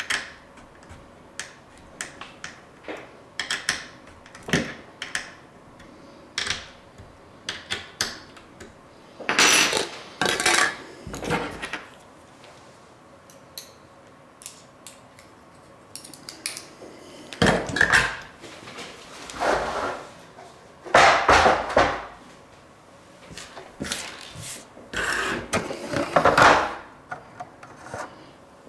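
Metal hardware handled on a wooden tabletop: scattered clicks and clinks of small metal parts, broken by several longer scraping sounds of about a second each, the loudest in the second half.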